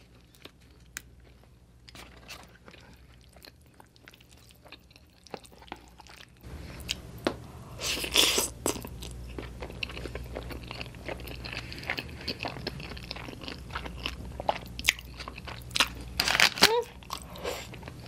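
Close-miked eating sounds: soft chewing of bread at first, then, from about six seconds in, wet chewing and loud slurps of fettuccine noodles, the biggest about eight seconds in and again near the end. A short hummed "mm" comes near the end.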